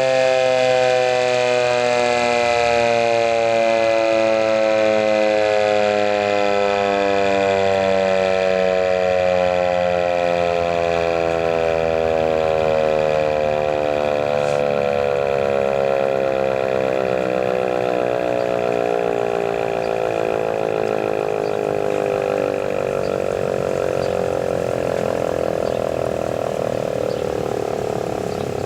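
ASC T-128 outdoor warning siren winding down after its alert signal. One steady siren tone glides slowly lower in pitch throughout and grows gradually quieter.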